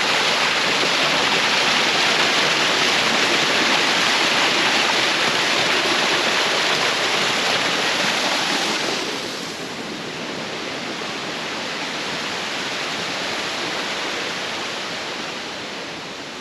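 Rushing water of a creek tumbling down a small waterfall, a steady hiss that drops noticeably about nine seconds in.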